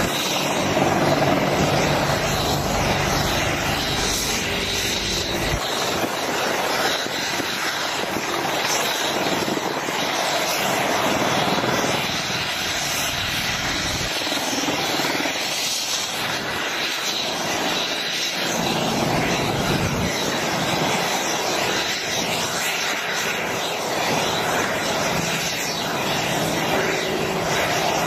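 AH-64E Apache Guardian attack helicopter hovering and flying low: steady rotor and twin turboshaft engine noise with a thin, high turbine whine. The deepest rumble falls away about six seconds in.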